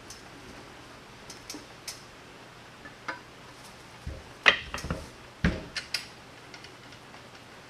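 Scattered light metallic clicks and clinks of small metal parts or hand tools being handled on a workbench, with a cluster of louder knocks about halfway through.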